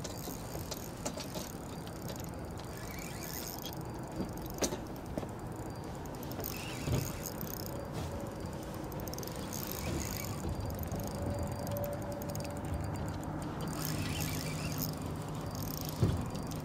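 Shimano Stella 2500 spinning reel being cranked on a retrieve: a steady low whir of its gears, with a few sharp clicks.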